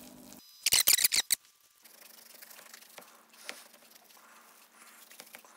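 Beef being torn apart by hand: a quick run of sharp, wet crackles about a second in, then faint scattered crackling as the shredded layers are pulled back.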